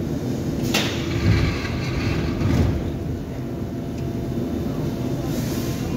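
An Athens metro train stands at the platform with its equipment humming steadily. There is a sharp burst of air hiss about a second in, then two low rumbling swells, while the doors open to let passengers off.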